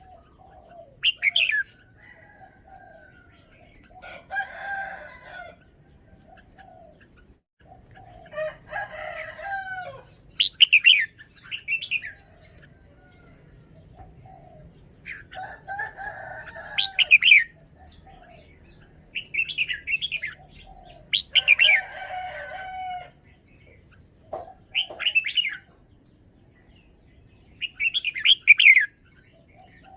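Red-whiskered bulbul singing short, bright warbling phrases every two to three seconds, with softer lower notes in between.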